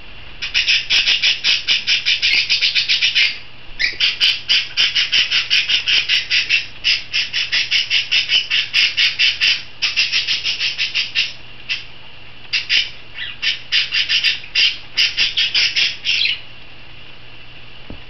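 Small pet parrots, a lovebird with budgerigars, giving rapid shrill squawks, about six a second, in long runs with two short breaks, stopping a couple of seconds before the end.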